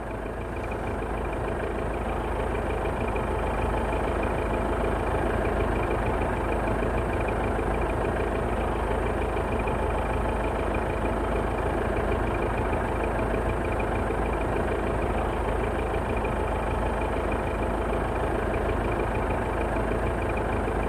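An engine running steadily with an even mechanical drone and a faint high whine held on one note. It swells slightly over the first couple of seconds, then holds level.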